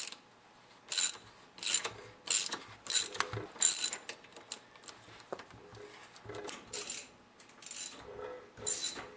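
A hand tap cutting 5/16-18 threads into a small engine's exhaust bolt hole, lubricated with cutting oil. Each turn gives a short metallic scrape with a squeak in it, about one or two a second.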